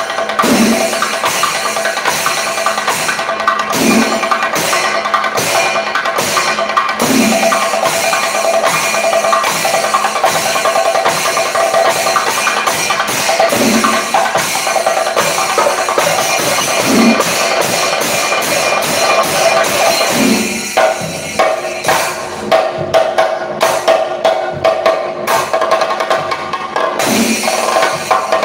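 Chenda melam: a group of Kerala chenda drums beaten with sticks in a fast, dense roll, with a heavier stroke about every three seconds. About two-thirds of the way through, the roll breaks into separate, sharper strokes.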